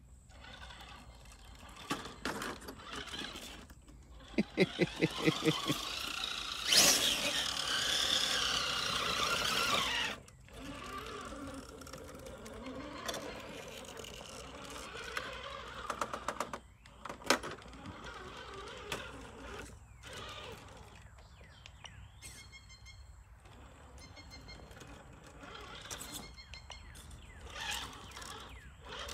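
An electric RC rock crawler driving and climbing over rock: drive motor and gears running, tyres scrabbling, and the chassis knocking on stone. The loudest run comes from about four to ten seconds in, with a fast rattle near its start. A few sharp knocks follow about seventeen seconds in.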